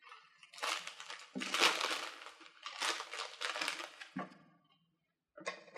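Cellophane bag crinkling as it is handled, in several bursts with short pauses between them.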